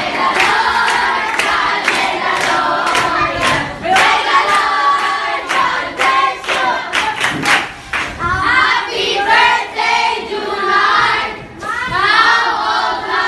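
A group of young people singing together and clapping in rhythm, about two claps a second. About eight seconds in the clapping stops and the voices carry on louder and higher.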